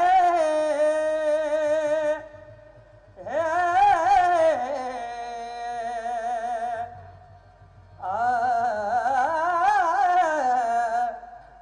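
Solo singing to music: long held notes with a wavering pitch, in three phrases with short breaks between them, over a faint low accompaniment.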